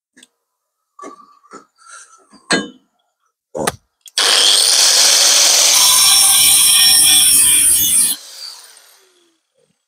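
A few light clicks and knocks of metal being handled, then a corded angle grinder with a cutting disc starts about four seconds in and cuts into the sheet-steel repair panel for about four seconds. It is then released and winds down with a falling whine.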